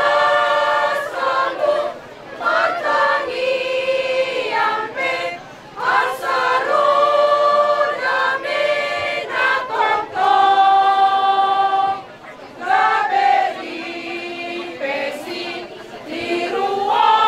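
A group of women singing a song together in chorus, in sustained phrases with short breaks between them.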